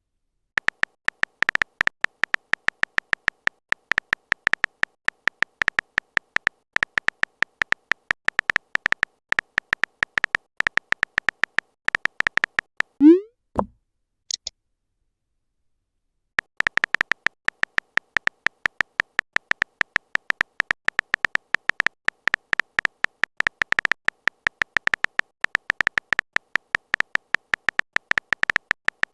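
Chat-app typing sound effect: a long run of sharp, high, even clicks, several a second. A little over halfway through it stops for a short rising 'bloop' and a brief high blip, the sound of a message arriving or being sent, and after a few seconds' silence the clicking starts again.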